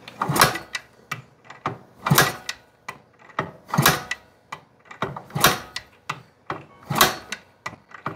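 Kickstarter on a 1977 Yamaha DT100 two-stroke single, kicked five times about a second and a half apart. The engine cranks over without firing, its spark plug swapped for a compression gauge. It turns over on low compression, just under 30 psi, which points to leakage past the rings.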